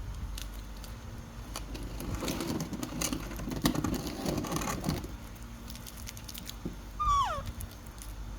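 Baby monkey handling and eating a cicada: scattered clicks, then a few seconds of crackly rustling and crunching. Near the end comes one short squeak, falling in pitch.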